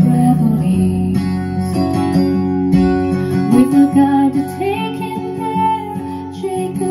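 A recorded song played back through JBL 4344 studio monitor speakers driven by a Sansui AU-D907F amplifier. This stretch is an instrumental passage of guitar and plucked strings, with no vocals.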